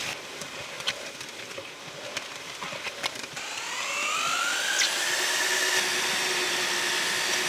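Liquid resin being poured into a plastic tub with small taps and clicks. About three seconds in, an electric paddle mixer spins up with a rising whine and then runs steady, stirring the resin binder.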